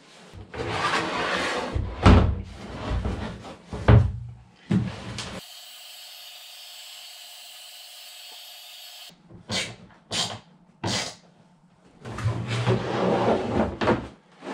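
Hard plastic ice sled and its plastic runner strip knocking and scraping as they are handled. In the middle a heat gun blows steadily for about four seconds, warming the runner so it can be bent around the sled's curved front, followed by a few sharp knocks and more handling noise.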